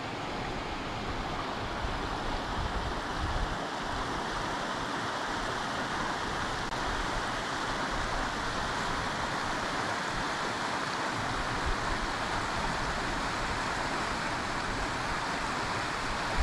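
Tanew river rushing over shallow rapids and around fallen logs, a steady rush of water.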